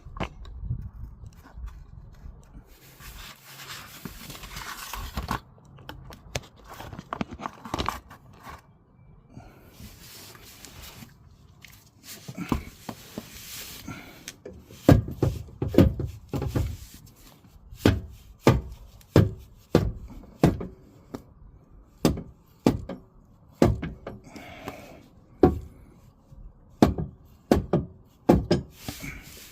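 Wooden blocks being handled and knocked about under a fuel tank: a few stretches of scraping in the first half, then a long run of irregular sharp knocks and thuds, about one to two a second, through the second half.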